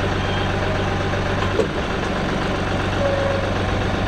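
Kioti NS6010 compact tractor's diesel engine idling steadily while the hydraulic grapple is cycled open and shut at idle, with a light clunk about a second and a half in.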